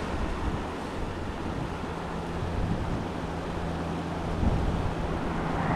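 Wind noise on the microphone over rushing canal water, running high after heavy rain, with a low steady hum that comes in about a second and a half in.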